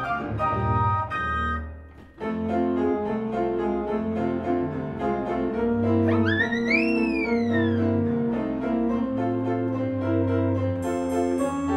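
Piano accompaniment music in a light classical style. It drops out briefly about two seconds in and then starts again. Around six seconds in, a single tone glides up quickly and then slowly down over the music.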